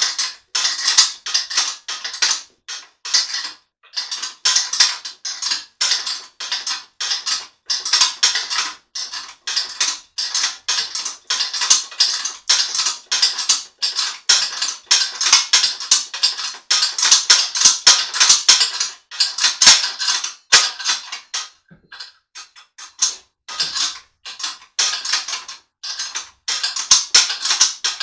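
Dense, irregular clattering and scraping of small hard parts being handled, a rapid run of clicks that thins out briefly past the middle.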